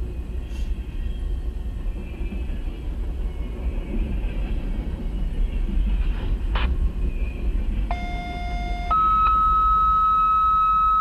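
Low rumble of a freight train of waste container cars rolling past, heard from inside a stopped car. About eight seconds in, a scanner radio sounds a two-tone dispatch page: a lower tone for about a second, then a higher tone held for about three seconds, which is the alert ahead of an EMS dispatch.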